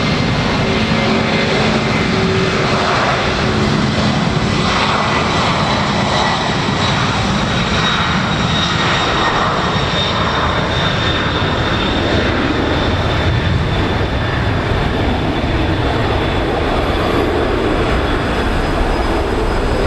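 Boeing 767-300 airliner's twin jet engines running loudly at high power during take-off: a steady heavy noise with a thin high whine that drifts slightly lower.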